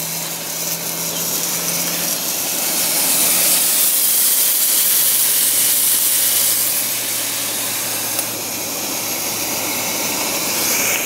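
Bacon rashers sizzling in a frying pan over a portable gas stove, with a steady hiss from the burner and a low hum that drops in pitch about halfway through.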